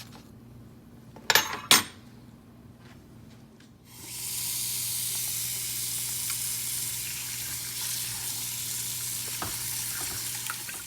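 Hot oil in a deep fryer sizzling steadily, starting suddenly about four seconds in as a phone goes into the oil. Two sharp clicks come about a second before the halfway point.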